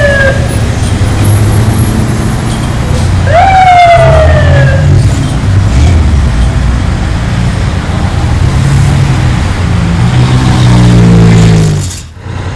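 Fire department aerial ladder truck pulling away, its diesel engine running loudly, with two short siren chirps: one right at the start and one about three seconds in, each rising quickly and falling away. Near the end the engine climbs in pitch as it speeds up, then the sound cuts off suddenly.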